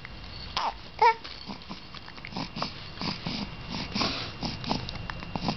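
A baby's small vocal sounds and breathing: one short, high squeal about a second in, among soft breaths and mouth noises.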